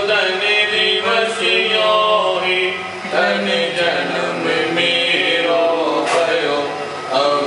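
Male voice chanting a Jain devotional hymn in a drawn-out, sung melody, over a steady low hum.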